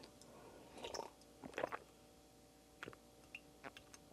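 Soft, close-up mouth sounds of eating: a few faint scattered clicks and small wet squishes, over a faint steady hum.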